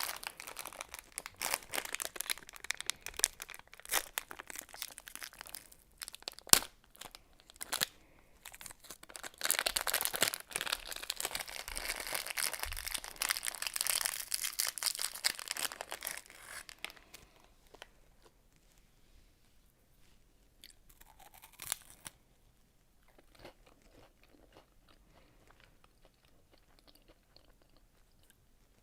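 Close-up crunching and chewing of a chocolate-covered wafer candy, dense and crackly through the first half, then fading to soft, sparse chewing for the rest.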